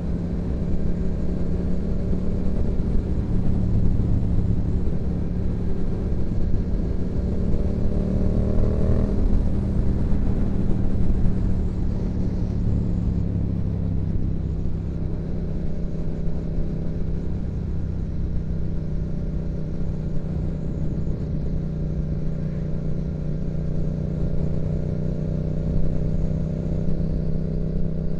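Yamaha MT-07's 689 cc parallel-twin engine through a Yoshimura exhaust, running under way on the road. Its pitch climbs slightly for the first nine seconds or so, eases, then holds a steady cruise.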